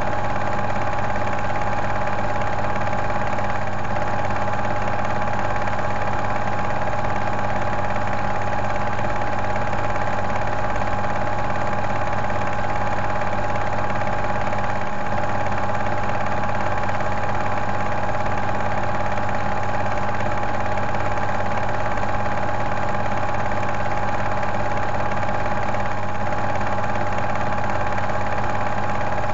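A cine film projector running with a steady mechanical hum.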